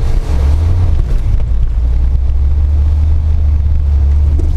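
Car driving over snow-covered ice, heard from inside the cabin: a loud, steady low rumble of engine and tyres as the car slides sideways through the snow.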